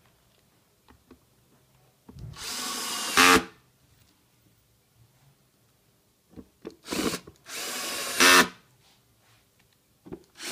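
Cordless drill-driver driving screws into a plastic motor housing: two runs of about a second each, a few short blips, and a third starting near the end. Each run rises to a louder peak at its end.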